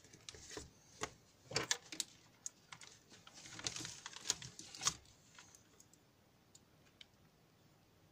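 Small clicks, taps and rustling of alligator-clip test leads and wires being handled on a desk, bunched in the first five seconds.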